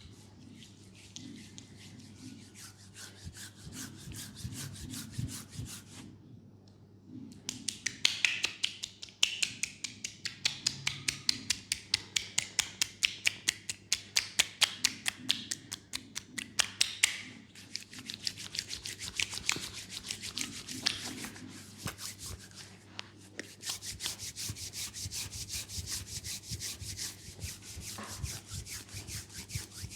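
Hands massaging a leg: soft rubbing at first, then quick, rhythmic strokes on the skin from about eight seconds in, and brisk steady rubbing again near the end.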